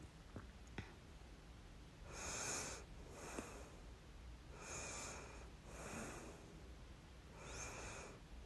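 A person with the hiccups: slow, audible breaths in and out, in pairs a few seconds apart, broken by short, sharp hiccups near the start and about three and a half seconds in.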